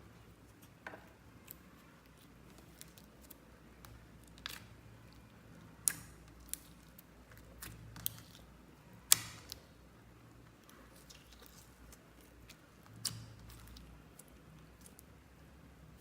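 Slime being handled: quiet sticky handling with a few scattered sharp pops and clicks, the loudest about nine seconds in.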